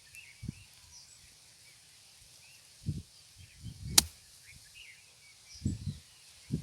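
A golf club strikes a ball once, a single sharp crack about four seconds in. Short low gusts of wind buffet the microphone around it, and faint bird chirps sound in the background.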